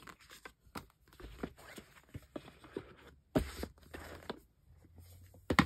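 Photocards and paper album inserts handled by hand: soft rustling and light scraping, with a few sharp taps, the loudest about three and a half seconds in and another near the end.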